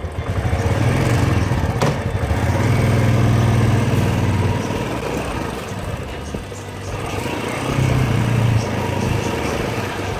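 Royal Enfield Classic's single-cylinder engine pulling the motorcycle along in a steady pulsing beat. The throttle opens about a second in, eases off around six seconds, and opens again near eight seconds.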